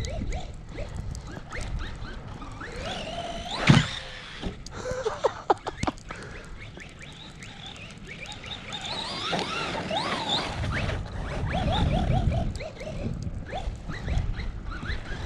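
Arrma Big Rock 3S brushless RC monster truck driving in snow: the electric motor's whine rises and falls as the throttle is worked. There is a sharp knock about four seconds in and a few clicks shortly after, over a low wind rumble.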